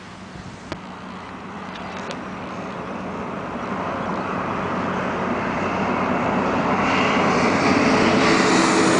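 An 18-wheeler approaching on the road: the steady rush of its tyres and diesel engine grows gradually louder throughout.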